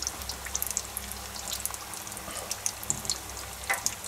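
Spring rolls deep-frying in hot oil in an electric deep fryer: the oil bubbling and sizzling steadily with many small crackles and pops.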